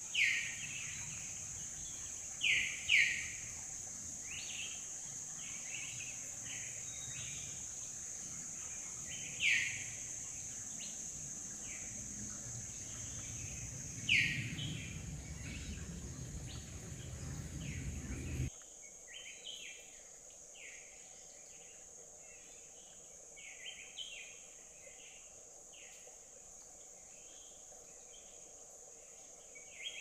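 Forest stream ambience: a steady high insect drone with birds calling over it, repeated sharp falling chirps, the loudest few in the first half. A low rumble of water underneath stops abruptly about two-thirds of the way through, leaving the drone and fainter chirps.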